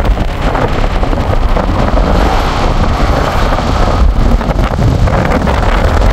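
Wind buffeting the microphone from a moving car, with steady road and tyre rumble underneath.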